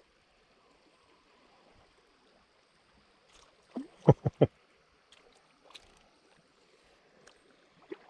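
A hooked fish splashing at the creek surface: a quick run of three or four splashes about four seconds in, over a faint steady hiss of flowing water.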